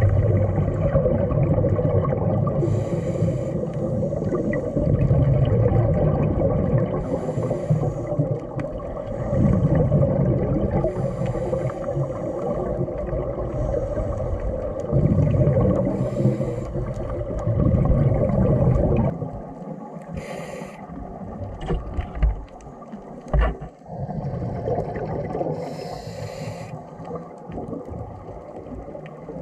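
Underwater sound of scuba breathing: a rush of exhaled regulator bubbles about every four seconds over a steady low water noise. About two-thirds of the way in, the low noise drops and a couple of soft knocks come through.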